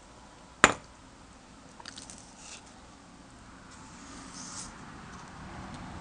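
One sharp click a little over half a second in, then faint scraping and rustling as a small brass lock cylinder with its key in it is handled.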